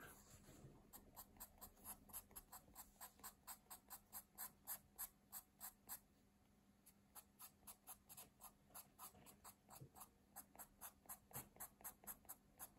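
Pencil scratching on drawing paper in quick, short shading strokes, about four a second, with a brief pause about six seconds in. Faint.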